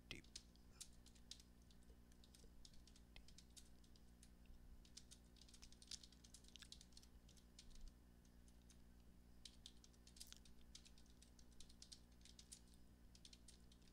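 Computer keyboard typing: faint, irregular keystroke clicks in quick runs with short pauses, over a low steady hum.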